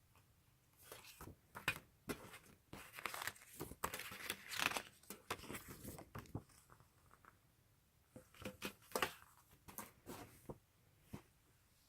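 Packaging being torn open and crinkled by hand, in two bursts of crackling tears and rustles separated by a short pause.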